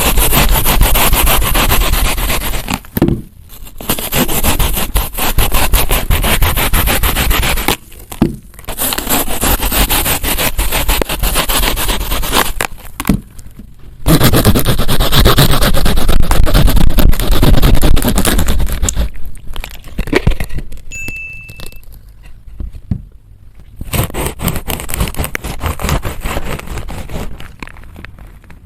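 Plastic knife sawing through fresh fruit: long spells of crackly scraping broken by short pauses, softer and more broken in the last third.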